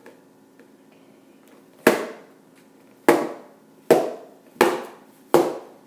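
Five sharp knocks, the first about two seconds in and the rest coming less than a second apart, each ringing briefly: a fidget spinner being punched hard, again and again, into an object to knock a hole through it.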